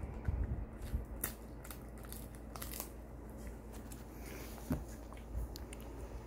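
A Shiba Inu biting and crunching a hard bone-shaped chew treat held in a hand: irregular sharp crunches and snaps, most of them in the first three seconds.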